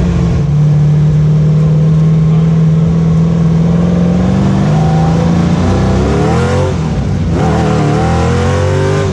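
Sandrail's 6.0-litre LS V8 running at steady revs, then accelerating hard about five seconds in: the revs climb, drop briefly at a gear change, and climb again.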